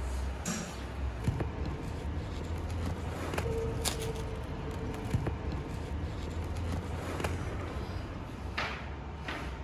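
A steady low hum runs under scattered light clicks and taps, the sounds of bread being handled and pulled apart by hand.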